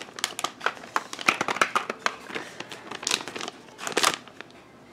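Holographic foil mailer bag crinkling in irregular crackles as it is handled.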